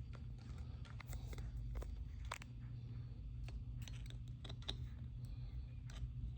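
Scattered light clicks and handling noise as meter test leads are clipped onto a dual run capacitor's terminals, over a low steady hum.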